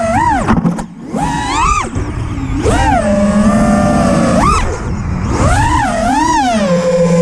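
Brushless motors and props of a 6S FPV freestyle quadcopter (T-Motor Velox V3 2050kv motors, Ethix P3 props) whining, the pitch swooping up and down with quick throttle punches. The throttle cuts briefly about a second in, and the pitch holds steadier near the middle.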